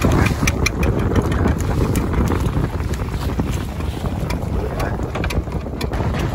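Wind buffeting the microphone over choppy sea, with water splashing against the side of a small boat and a few light clicks.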